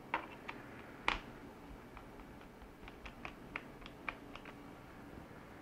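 Small screwdriver turning out a screw in the plastic bottom cover of a Lenovo B590 laptop: scattered light clicks and ticks, two sharper ones in the first second and a run of smaller ticks a couple of seconds later.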